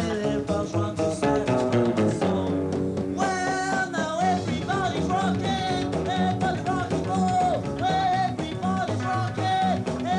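Band music with guitar and singing.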